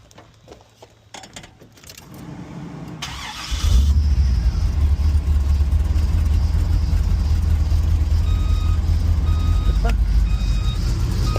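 Freshly rebuilt LS V8 engine of a Monte Carlo SS cranking and catching about three and a half seconds in, then idling steadily. Near the end a short chime beeps about once a second.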